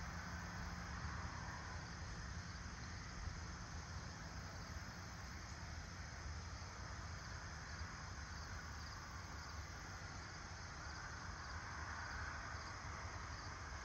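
Late-summer dawn insect chorus, crickets and the like chirring steadily, over a low steady rumble.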